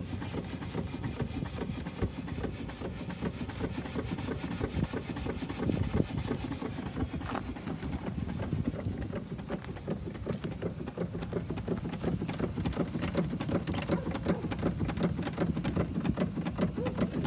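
Blackstaff steeple compound steam engine running steadily with a fast, even beat, turning the launch's propeller in open air out of the water.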